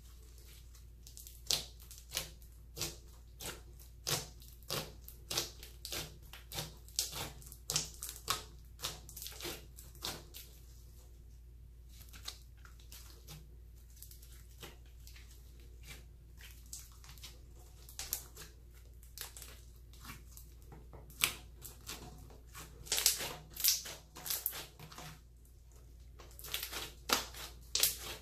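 Clear slime mixed with eyeshadow being squeezed and pressed by hand, giving short sticky crackles and squelches, irregular and at times in quick clusters.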